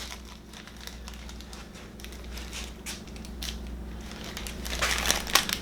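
Plastic packaging crinkling and rustling as a gas conversion kit's bag is handled, with scattered small crackles that grow busier toward the end.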